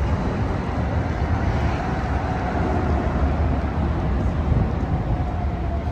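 NJ Transit passenger train hauled by locomotive 4537 running past with a steady low rumble and a faint whine that slowly drops in pitch.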